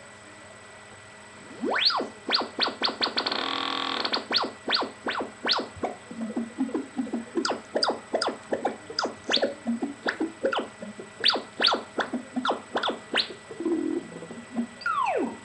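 Eurorack modular synthesizer making electronic chirps: after a faint hum, a rising sweep comes in about a second and a half in, then a brief held buzzy tone, and then quick downward pitch sweeps repeating irregularly at about two or three a second, ending on one falling sweep.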